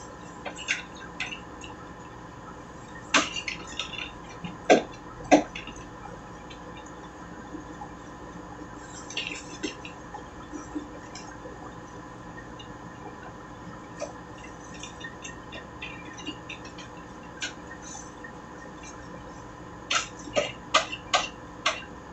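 Scattered sharp clicks and crinkles of gloved hands pulling ink-soaked waste ink pads out of an Epson L360 printer and handling them in paper, over a steady low hum. A few loud clicks come a few seconds in, and a quick run of them near the end.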